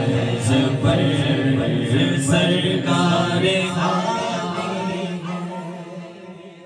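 Men's voices singing an Urdu naat with no instruments: a lead singer with other voices singing along. The sound fades out over the last two seconds.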